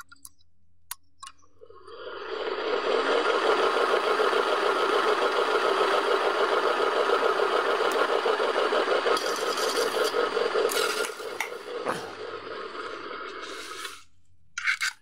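Ceiling fan motor, just repaired and tested on the bench, spins up about two seconds in and runs with a steady, fast rattling clatter, then stops about a second before the end. The motor is turning freely again after being jammed.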